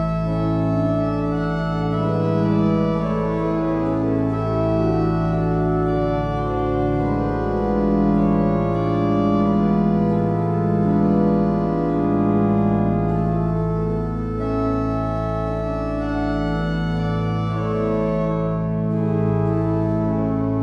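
Organ playing music in A major: several lines of held notes moving in slow chords over a sustained deep bass note. The bass briefly breaks about two, ten and nineteen seconds in.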